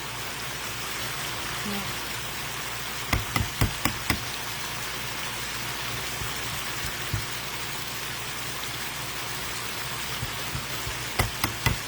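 Chicken in a pan of sauce sizzling and simmering with a steady hiss. There are two quick clusters of sharp taps, about three seconds in and again near the end.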